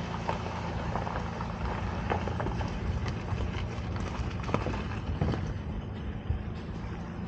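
SUV engine running steadily as it tows a small boat on a trailer across a shingle beach, with scattered crunches and clicks from stones under the tyres.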